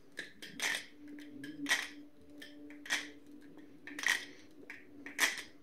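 Chimera clone butterfly knife being flipped, its pivots freshly lubed with KPL and tightened: sharp metallic clacks of the handles and blade about once a second, with lighter clicks between.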